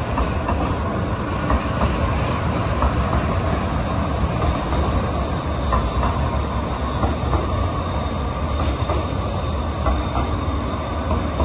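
UTA TRAX light rail train passing on street track: a steady rumble of steel wheels on the rails, with a few faint clicks.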